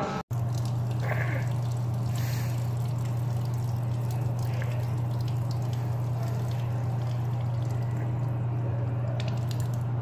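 A steady low hum under an even hiss like running water, with a few faint ticks, starting abruptly just after a brief dropout.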